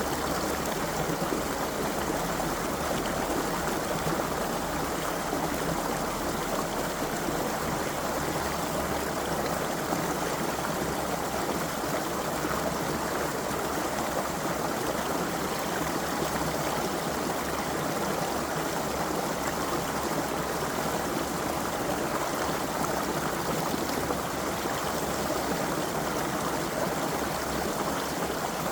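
A creek's water flowing steadily over rocks, a constant rush and babble of running water.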